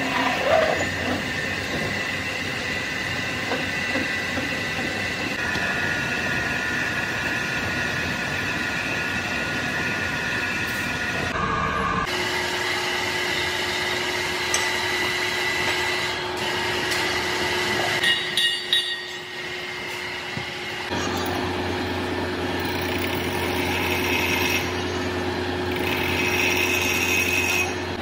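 Large engine lathe turning a big steel shaft, the cutting tool giving a steady high-pitched ringing over the machine's running hum. The sound changes abruptly about 12 and 21 seconds in.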